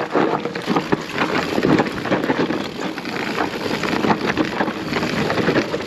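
Mountain bike tyres crunching and sliding over loose volcanic rock, with a dense run of small clicks and crackles from stones shifting under the wheels.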